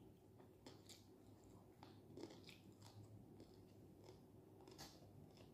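Faint chewing of fried fish, with scattered small crunches and crackles as it is bitten and pulled apart by hand.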